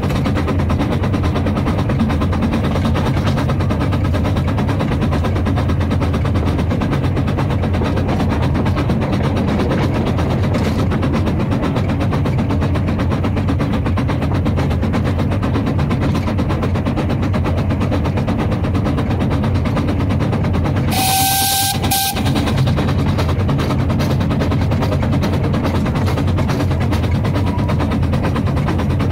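1905 Bagnall narrow-gauge steam locomotive running along the line, heard from the cab: a steady, fast, rhythmic rumble of exhaust and wheels on rail. About three quarters of the way through, its steam whistle sounds once for about a second, a steady note over a hiss of steam.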